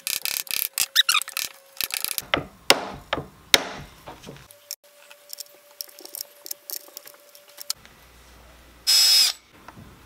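Rapid small clicks and knocks of metal hardware being handled and fitted into a maple guitar headstock: tuner bushings and tuning machines. A few sharper knocks come two to three seconds in, and near the end there is a short high-pitched whir lasting under half a second.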